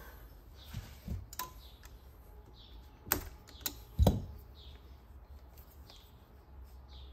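Socket extension and screw clicking and knocking against a bronze raw-water pump housing as the last housing screw is backed out and pulled free. The clicks are scattered, with a sharp knock about four seconds in the loudest.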